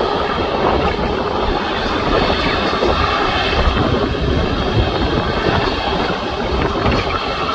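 Jet airliner engines running, a loud steady rumble with a faint high whine over it.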